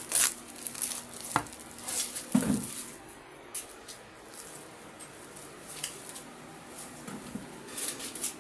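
Cube packaging being handled and pulled apart by hand: scattered scrapes, rustles and light knocks, busiest in the first three seconds, then quieter ticks.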